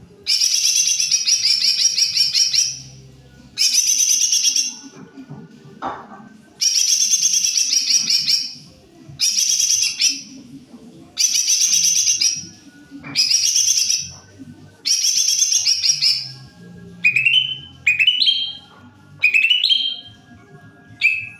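Green leafbird (cucak ijo) singing loudly in repeated bursts of rapid, chattering song, each one to three seconds long. Near the end it switches to short rising whistles.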